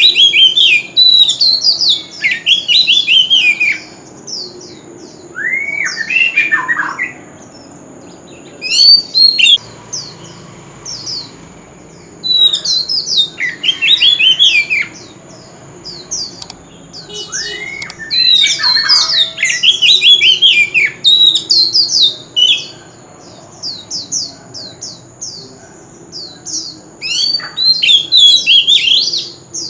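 Oriental magpie-robin singing: loud phrases of quick, sweeping whistled notes, separated by pauses of a few seconds.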